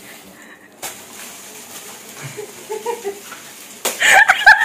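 A person breaks into rapid, high-pitched laughter near the end, after a few quiet seconds with a soft click about a second in.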